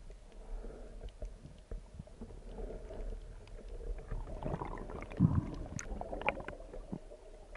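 Underwater ambience picked up by an action camera: muffled water movement with scattered short clicks and crackles, and a low thump about five seconds in.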